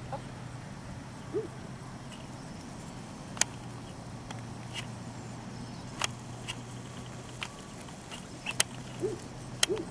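Open-field ambience: a steady low hum with several sharp clicks scattered through it, and a few very short low calls about a second in and again near the end.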